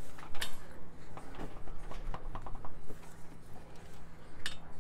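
Metal-on-metal clinks, clicks and scrapes of a crankshaft pulley being handled and slid onto the crank nose by hand. There are sharp clicks about half a second in and near the end, and a quick run of light ticks around two seconds in.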